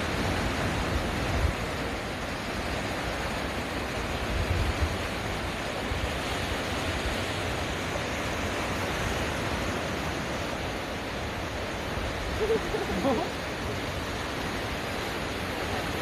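Sea surf washing and breaking over basalt rocks, a steady rushing noise, with low gusts of wind rumble on the microphone early on and around four to five seconds in. A brief wavering pitched call comes about twelve and a half seconds in.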